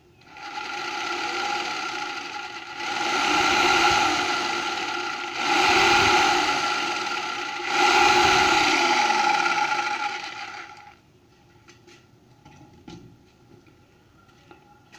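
Electric jigsaw running free with no workpiece, its motor and reciprocating blade buzzing steadily and swelling louder three times before cutting off about eleven seconds in. A few faint knocks follow as it is set down.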